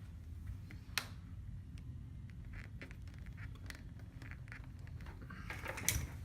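Small handling noises from fitting a wireless door sensor and its magnet to a door: scattered light taps, scratches and scrapes, with a sharp click about a second in and busier scraping near the end, over a low steady hum.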